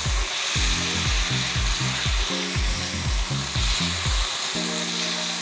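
Onions sizzling as they fry in a hot pan, with a steady hiss. Background music with a bass line plays under it and settles on a held chord near the end.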